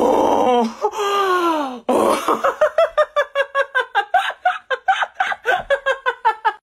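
A young man gives two long, drawn-out cries. About two seconds in he breaks into loud, rapid laughter, about five bursts of 'ha' a second.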